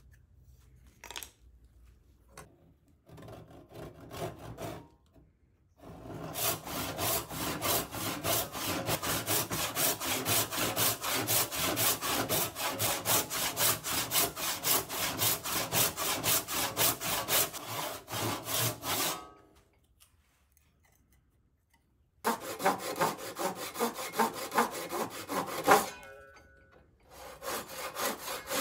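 Hand saw cutting a wooden board clamped in a bench vise, in rapid, even back-and-forth strokes. A long run of sawing stops for a few seconds, then a shorter run follows that ends in a sharp knock.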